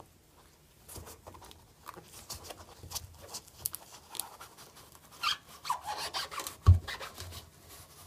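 Gloved hands working the wire spring locking ring off a front-load washer's rubber door seal: rubbing and scraping on the rubber with small scattered clicks from the metal ring. One thump comes about two-thirds of the way through.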